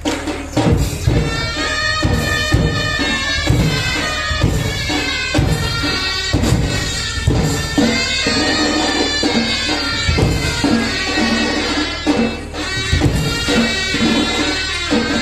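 Chhau dance music played live: a reedy double-reed wind instrument (mahuri) plays a wavering, ornamented tune over heavy drum beats that land every second or so, with jingling percussion.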